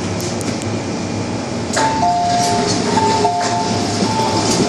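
MTR M-Train rolling with steady running noise. About two seconds in there is a jolt, then squealing tones that switch back and forth between two pitches, like wheels squealing as the train slows into the platform.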